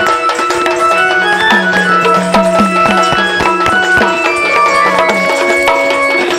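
Instrumental interlude of Sambalpuri danda folk music: a steady melody over a hand drum, whose low strokes swoop in pitch and come in a quick run through the middle.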